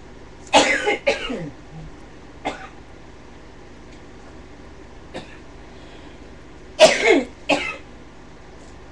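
A person coughing: a quick double cough about half a second in, and another double cough about seven seconds in.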